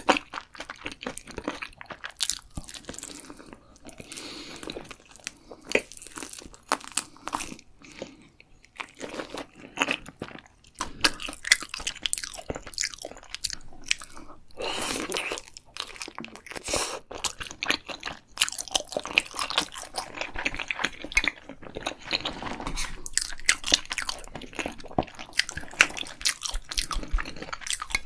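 Close-miked chewing and crunching of food, an irregular run of crisp crunches and wet mouth sounds.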